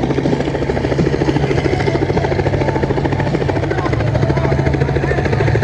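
Helicopter flying low overhead, its rotor blades making a rapid, steady chop over a low engine drone.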